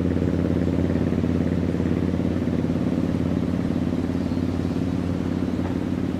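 A motor vehicle's engine running steadily at a constant pitch, with an even, rapid pulsing, growing slightly quieter near the end.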